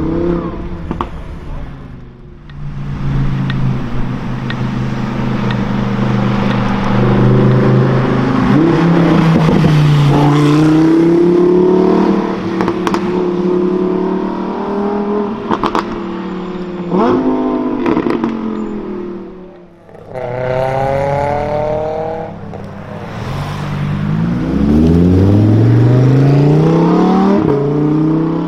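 Lamborghini Huracán Performante's naturally aspirated V10 pulling away and then accelerating hard in several separate runs. The engine note climbs in pitch through the revs, with quick steps up through the gears.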